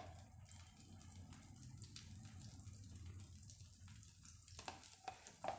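Faint sizzling of a thin neer dosa cooking in a hot non-stick frying pan as oil is drizzled around its edges, with a few light clicks near the end.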